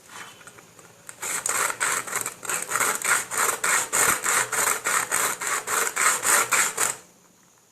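A blade sawing back and forth through the bottom of a tin can, in rapid, even strokes of about three to four a second that start about a second in and stop shortly before the end.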